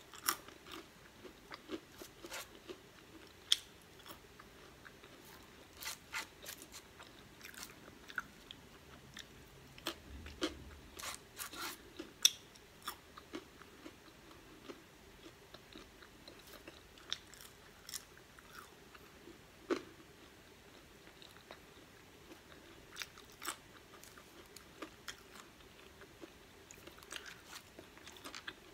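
Close-up sounds of a person eating crinkle-cut french fries: irregular biting, chewing and small crunchy mouth clicks.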